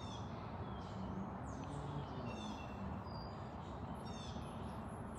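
Faint birds chirping in short repeated calls over a quiet steady outdoor background, with a thin high steady tone coming in about four seconds in.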